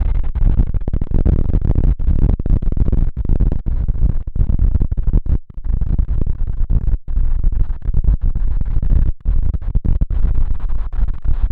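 Strong wind buffeting the microphone: a loud, rough low rumble broken by brief dropouts, deepest about five, seven and nine seconds in.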